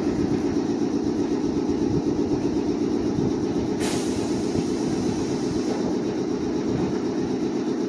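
Nagoya Municipal Subway Tsurumai Line train running: a steady rumble with a low hum, and one brief sharp noise about four seconds in.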